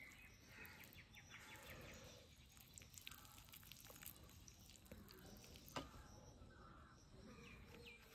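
Near silence: faint outdoor background with a few soft clicks, and near the end a run of faint bird chirps.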